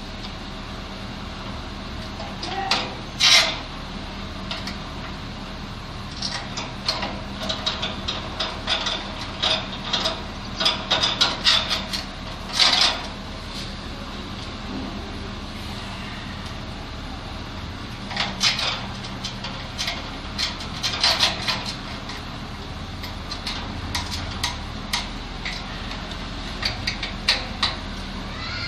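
Irregular clinks, taps and scrapes of hand tools and small metal parts being handled on the valve fittings of an open gas water heater, over a steady low hum.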